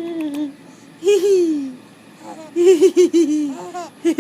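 Four-month-old baby laughing and squealing: a drawn-out vocal sound at the start, a falling squeal about a second in, then a quick run of pulsing laughs near the end.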